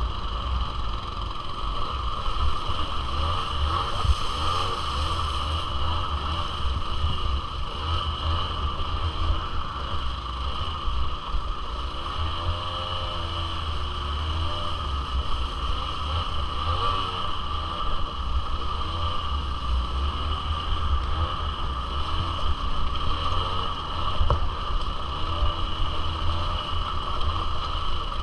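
Suzuki LT80 ATV's small two-stroke single-cylinder engine running under way, its pitch rising and falling repeatedly as the throttle is worked, over a heavy low rumble.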